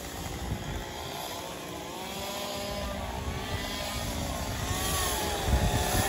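An engine running steadily, its pitch drifting slowly up and down, growing a little louder toward the end.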